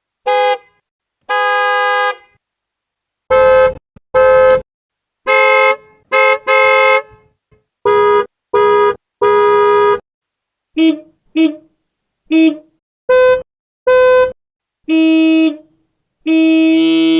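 A run of different car horns honking one after another with silent gaps between: some short toots, some held blasts of about a second. Each horn has its own pitch, and the later ones are lower.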